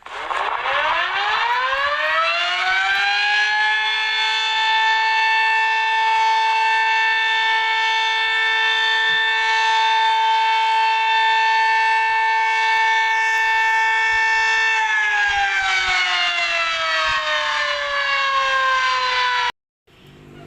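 Civil defense siren sounding as an emergency alarm. It winds up over the first few seconds, holds one steady wail for about eleven seconds, then winds down near the end and cuts off abruptly.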